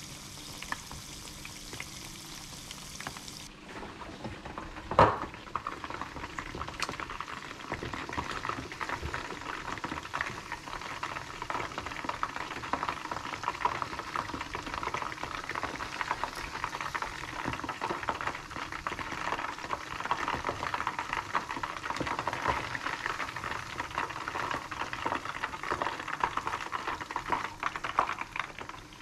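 Flour-coated chicken pieces frying in hot oil in a saucepan: a dense, steady crackle and sizzle that grows fuller after a few seconds. One sharp knock about five seconds in.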